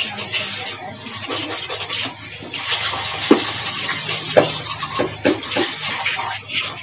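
Water jet from a Fortech portable electric motorcycle washer spraying onto a scooter's rear wheel and bodywork and splashing, with two sharp knocks about three seconds in and again a second later.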